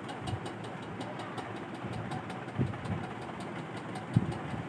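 Steady, engine-like background hum with faint, fast, even ticking, and two brief faint knocks, about two and a half and four seconds in.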